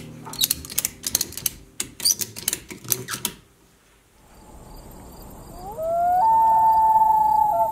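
A quick run of clicks and knocks from gear being handled at the car. About six seconds in comes a long wailing animal call that glides up, steps to a higher note and holds it.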